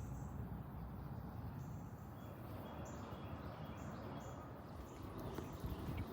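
Outdoor ambience: faint, short bird calls over a steady low rumble.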